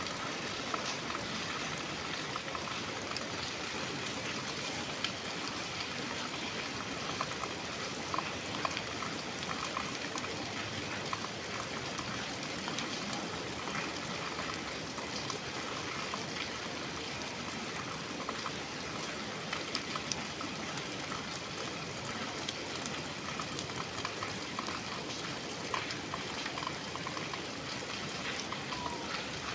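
Rainstorm heard from inside a café: a steady hiss of rain with many scattered drops ticking.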